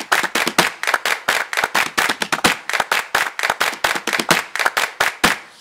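Rapid hand claps, about eight a second, opening an upbeat percussion music track, stopping shortly before the end.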